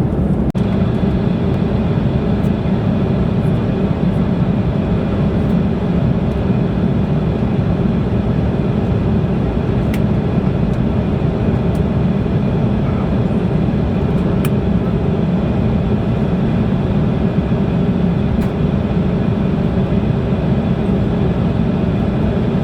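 Steady drone of a jet airliner's cabin in flight: engine and airflow noise, even and unchanging, with a faint steady hum over it.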